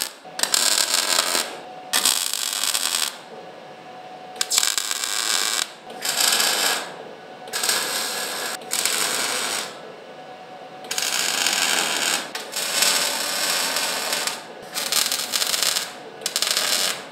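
MIG welder laying tack welds on steel square tubing: about ten separate bursts of crackling arc, each a second or two long, with short pauses between.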